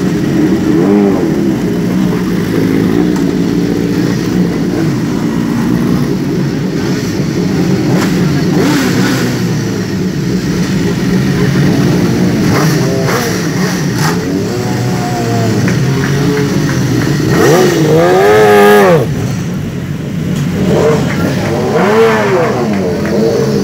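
Several 1000cc superbike engines idling together, with repeated blips of the throttle rising and falling in pitch. The loudest is a quick run of revs about three-quarters of the way through.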